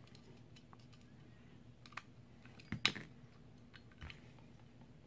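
Light, scattered clicks and taps of small metal parts as a trigger pin is pushed by hand through an AR-15 lower receiver and trigger, the loudest click just before three seconds in.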